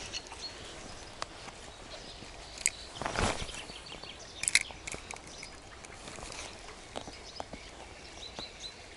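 A brief splash about three seconds in as a small released chub drops back into the river, with faint birdsong and a couple of sharp clicks around it.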